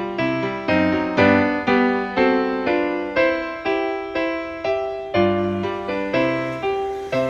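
Background music: a gentle piano melody, notes struck about two or three a second.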